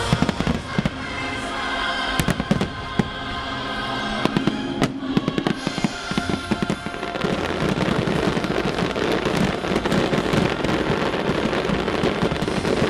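Fireworks going off: scattered sharp bangs over music at first, then from about seven seconds in a dense barrage of rapid pops and crackles.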